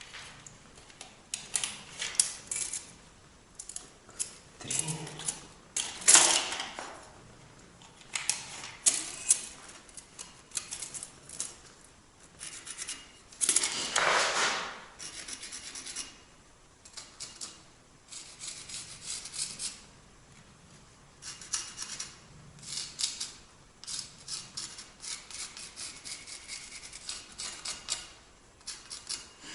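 Hand tool scraping and rasping into a brick in runs of quick strokes with short pauses between, cutting a small groove for the fireplace grate bars.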